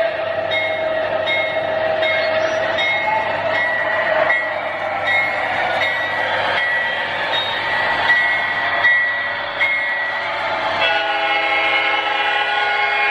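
Digital sound from an O gauge GE Genesis diesel's Proto-Sound 3.0 system: a bell ringing steadily, about one stroke every 0.7 s, then a chord horn blowing about eleven seconds in.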